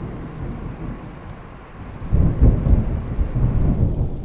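Thunder rumbling, low and quieter at first, then rolling louder about halfway through.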